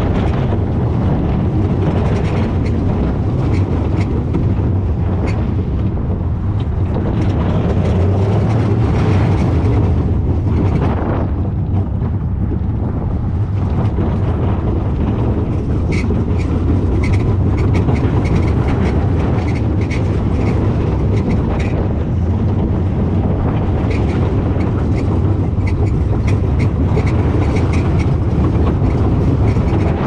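Zamperla Windstorm roller coaster train running on its steel track: a loud, steady rumbling of the wheels, with a run of rattling clicks through the second half.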